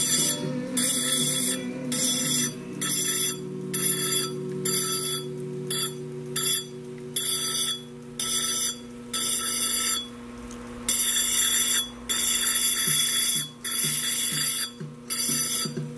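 Diamond engraving wheel grinding cased glass in short strokes: a high, gritty hiss that starts and stops every half second or so as the glass is pressed to the wheel and lifted off, with a few longer passes later on.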